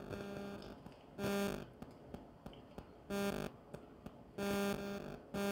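A woman humming 'mmm' with her mouth closed while chewing a bite of food: about four short, flat-pitched hums at irregular intervals, with faint chewing clicks between them.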